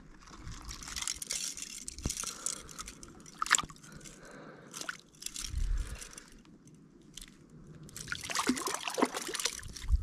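Irregular crunches and scrapes on a stony shoreline at the water's edge, with light water sloshing and dripping.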